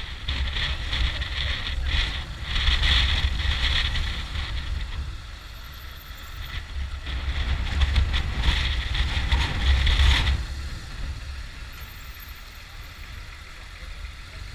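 Motorcycle riding slowly through town, heard mostly as a low wind rumble on the bike-mounted camera's microphone with engine noise beneath it. The noise comes in two louder surges and eases off after about ten seconds as the bike slows.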